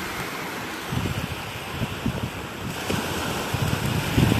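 Gulf of Mexico surf washing onto the beach, with wind buffeting the microphone in gusts that grow stronger near the end.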